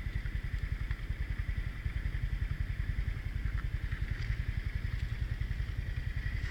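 Motorcycle engine running with a steady, rapid low throb, and a steady high-pitched drone above it.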